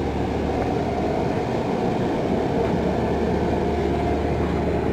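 Steady, even rumbling noise with no distinct events.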